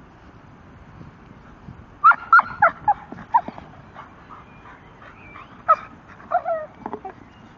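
Young Staffordshire bull terrier giving short, high-pitched whines and yips in excited play. There is a quick run of them about two seconds in and a few more near the end.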